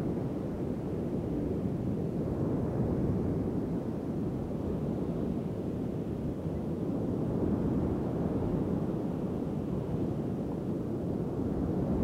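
Rough sea surf breaking along the shore, mixed with strong wind rumbling on the microphone; the noise swells and eases every few seconds.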